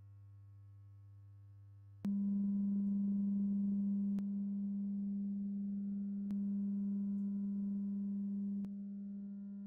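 Sine-wave test tones from a small portable speaker, picked up by a microphone: a faint steady 100 Hz tone, then, about two seconds in, a click and a much louder steady 200 Hz tone. The 200 Hz tone's level shifts in steps, each with a faint click, as the listening switches between the dynamic and condenser microphones and the speaker is turned off-axis.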